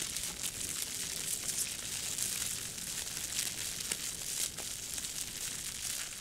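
Live sound-effect fire: material crumpled and crinkled by hand in a plastic bin, giving a steady crackle full of sharp little snaps, standing for a blaze burning.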